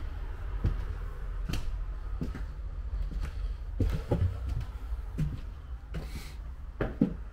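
Footsteps and knocks in a bare, gutted room: irregular thuds about once a second over a steady low rumble.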